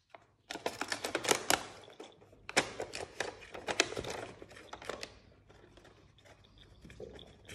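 A cat pawing and scratching inside a small cardboard box: quick scratchy clicks and rustles that ease off after about five seconds.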